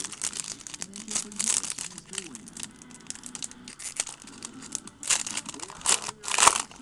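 Foil trading-card pack wrappers crinkling and tearing open as a new pack is opened, in several crackly bursts, the loudest near the end.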